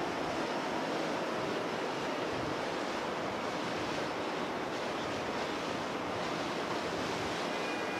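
Steady rushing noise of wind and water from on a moving boat, with no single distinct event.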